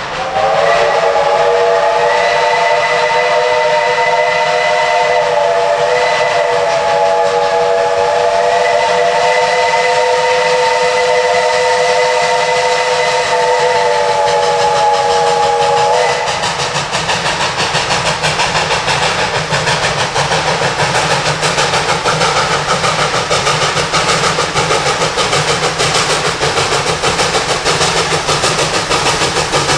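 Tweetsie Railroad's #190, a Baldwin 4-6-0 narrow-gauge steam locomotive, blowing one long chime whistle, a chord of several tones that wavers slightly, for about sixteen seconds. After the whistle cuts off, the locomotive's exhaust chuffs in a quick, steady beat as it works past with its train.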